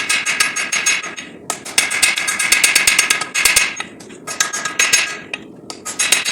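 Hand hammer striking a hot SAE 5160 steel knife blank on an anvil in quick runs of blows, several a second, with short pauses between the runs; the steel and anvil ring with each strike.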